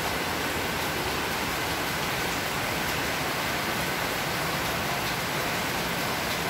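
Steady heavy rain falling, an even hiss.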